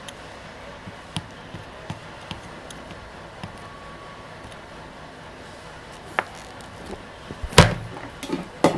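Quiet workbench handling during soldering: a few faint ticks and clicks, then one sharp knock about seven and a half seconds in, followed by a few lighter knocks as things are set down on the bench.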